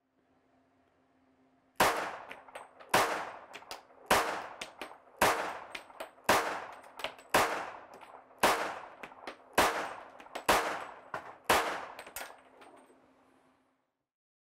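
About ten pistol shots from a Glock 20 firing .40 S&W handloads through a drop-in barrel, fired at a steady pace of about one a second, each with a short echoing tail. Fainter clicks fall between the shots, and a faint steady hum runs underneath.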